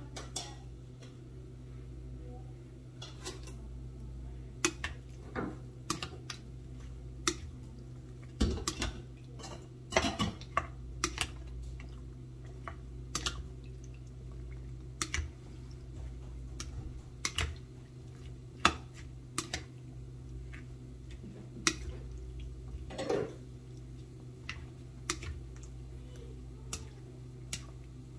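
White plastic spoon knocking and scraping against an enamel bowl as chopped raw fish and vegetables for ceviche are tossed together: many irregular clicks and clacks over a steady low hum.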